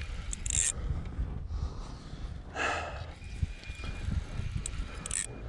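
Wind buffeting the microphone with a steady low rumble, and three short exhaled breaths or huffs from the angler: one about half a second in, a stronger one near the middle, and one near the end.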